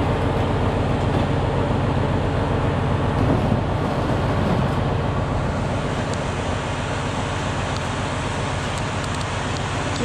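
Milk tanker truck's diesel engine idling, a steady low rumble.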